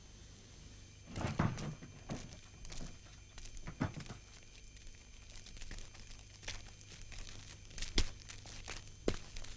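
Footsteps and handling noises: scattered scuffs, rustles and knocks, with a sharp knock toward the end and a steady low hum underneath.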